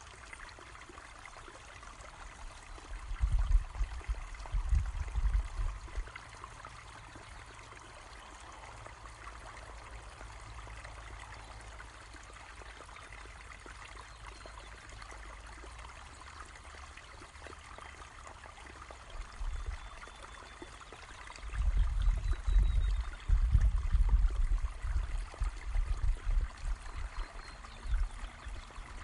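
Water from a small hillside spring trickling and splashing steadily. Bursts of low rumble come about three to six seconds in and again through the last third.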